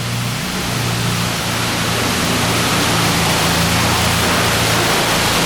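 Steady, loud hiss of high-pressure water spraying in a car wash bay, with the low, even hum of a car engine idling underneath.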